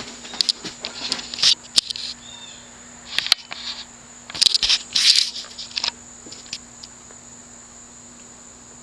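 SMC KC52 ceiling fan's stamped-steel spinner motor running at medium-low speed with a steady hum and a thin high whine. Over the first six seconds, scattered clicks and brief rustling as the speed is switched on the four-speed wall control.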